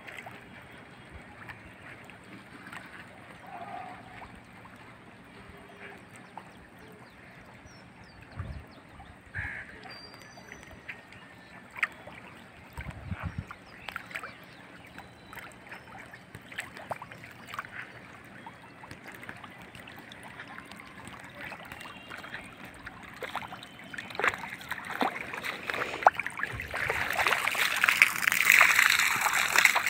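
Water from a hose running onto a freshly cast concrete roof slab that is being flooded to cure it. Faint at first, it grows into a louder splashing trickle over the last few seconds.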